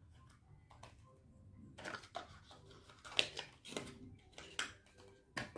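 Hands handling small nail polish bottles and their packaging: a run of irregular clicks and rustles starting about two seconds in, the sharpest a little past the middle.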